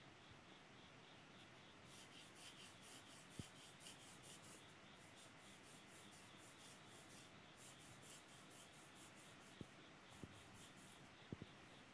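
Pencil lead scratching on drawing paper in quick back-and-forth sketching strokes, about six a second. The strokes start about two seconds in and pause briefly twice, with a few faint small knocks between them.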